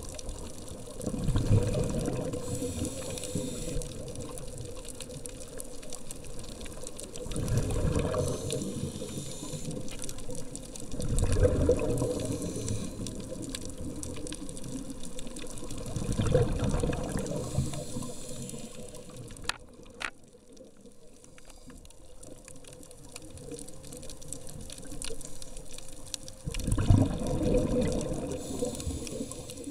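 Scuba diver's breathing through a regulator, heard underwater: a rush of exhaled bubbles every few seconds, five times, with a fainter hiss of the inhalations between them. There is a longer pause between breaths about two-thirds through, and one sharp click.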